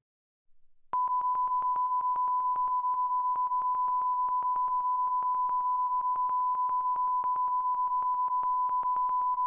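A steady pure test tone from a studio monitor loudspeaker, starting about a second in and picked up by an omnidirectional microphone as it rotates. Its level stays virtually constant while the angle between microphone and speaker changes, showing the mic's equal pickup from all directions.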